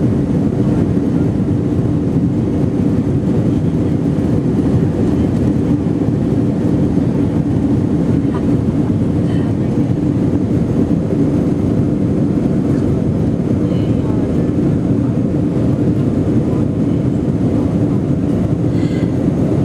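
Airliner cabin noise: a steady low rumble of jet engines and rushing air, heard from inside the passenger cabin while the plane climbs.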